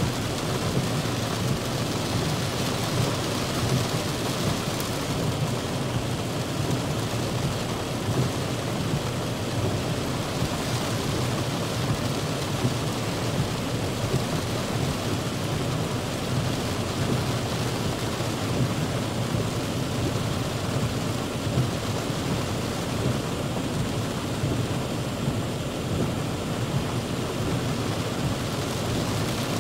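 Heavy rain pelting a car's roof and windshield, heard from inside the car: a dense, steady downpour with a low drumming rumble under the hiss.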